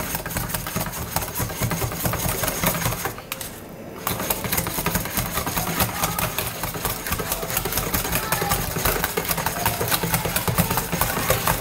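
A whisk beating gravy in a stainless steel bowl: a fast, steady rattle of the whisk against the metal, pausing briefly about three seconds in before carrying on. The gravy is brown gravy mix being whisked into cream of mushroom soup and water until thick and creamy.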